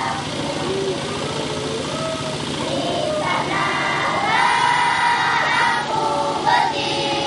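Group of children singing together in a choir, holding drawn-out notes, over a steady background hiss.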